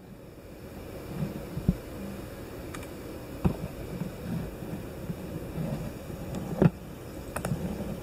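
Quiet room noise with a low hum, broken by a few scattered soft knocks and clicks, the loudest about two-thirds of the way through.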